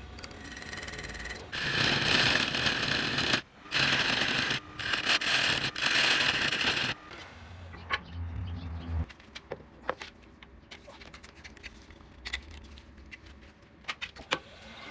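A turning tool cutting into a spinning mallee burl blank on a wood lathe, in three loud cutting passes in the first half with short breaks between them. Then it goes quieter, with a brief low hum and scattered clicks and taps.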